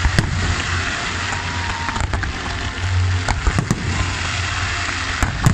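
Fireworks display: aerial shells bursting in a string of sharp bangs over a continuous crackling haze, the loudest bang near the end.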